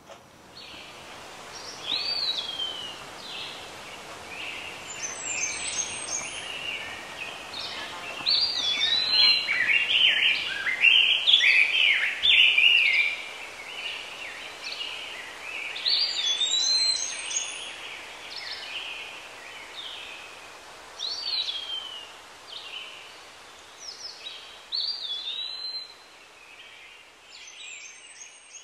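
Birds chirping and singing, a run of short whistled calls that rise and then fall, over a faint steady hiss; the calls are busiest in the middle and thin out toward the end.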